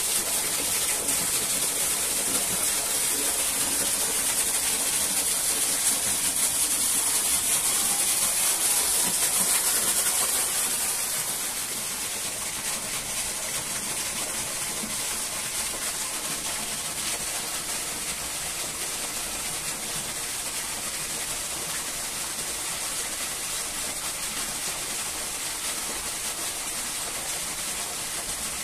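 Steady rushing water, an unbroken hiss that drops a little in level about eleven seconds in.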